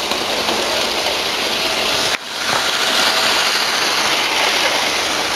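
Model train running on its track, a steady whirring hiss of the small electric motor and wheels on rail, with a brief break about two seconds in.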